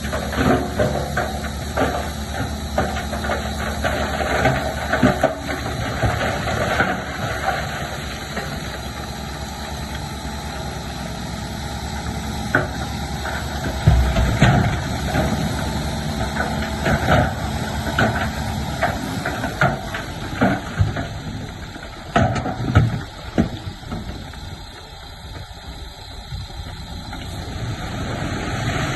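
Heavy diesel engine of earthmoving machinery running steadily, with scattered knocks and clatter throughout. There is a heavier thump about halfway through, two more a little later, and the engine sound drops away for a few seconds near the end.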